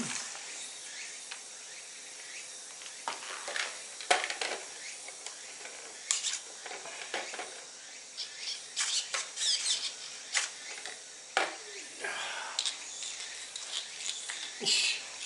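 Intermittent light clicks, knocks and clatter as a radio-controlled engine buggy and its gear are handled, with a sharper knock about four seconds in and a brief rattle around nine to ten seconds.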